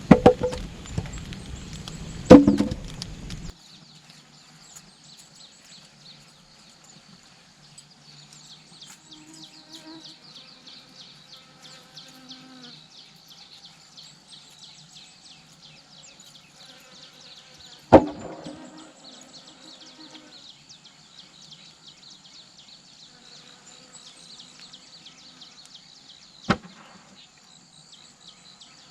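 Insects buzzing and chirring steadily in a dense high shimmer. There are sharp knocks twice in the first few seconds, a loud one about eighteen seconds in and another near the end.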